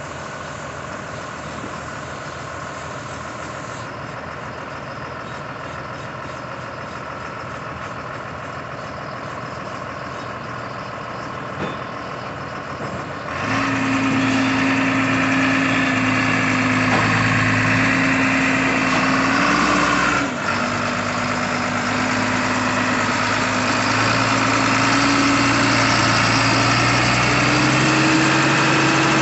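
New Holland TS6.125 tractor's diesel engine idling. It is fairly faint at first, then much louder and closer from about halfway through, with a steady pitch. The pitch dips briefly and creeps up near the end as the engine is revved slightly.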